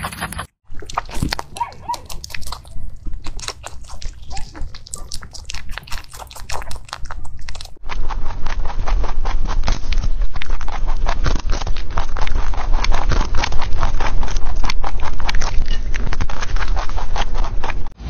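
Rabbits chewing and crunching fresh vegetables, a fast, irregular run of small crisp clicks. About eight seconds in, the crunching turns louder and denser as a rabbit bites into a head of Romanesco broccoli.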